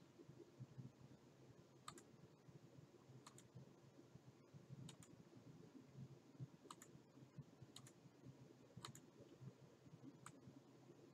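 Faint clicks of a computer mouse, about seven spread a second or so apart, several as quick pairs of press and release, over a low steady hum.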